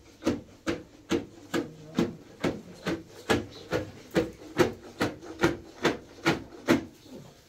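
Steady, evenly paced strokes of some hand work, a little over two a second, each a short scrape or rub.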